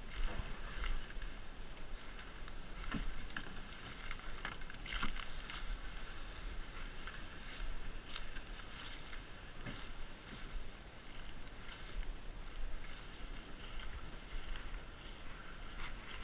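Red plastic sit-in kayak dragged by its bow over dry leaf litter and twigs, with irregular crunching and rustling over a steady hiss.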